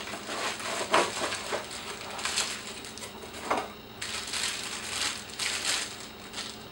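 Plastic wrap crinkling and a cardboard box rustling as a tripod head is slid out of its box and handled. Irregular rustles, with a few sharper clicks.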